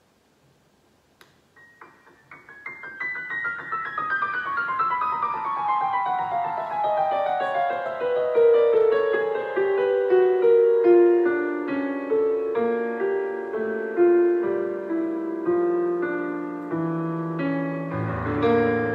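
Solo piano introduction: after about a second of quiet, a long run of quick notes cascades downward from high to middle register, then settles into slow, held chords, with a deep bass note entering near the end.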